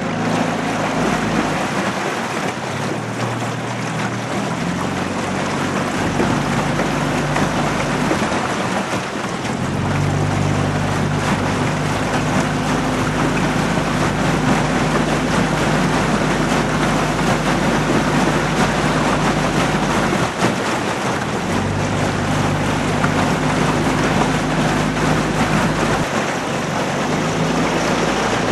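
Small boat's outboard motor running, its note shifting up and down a few times as the throttle changes, over a steady rushing noise of wind and water.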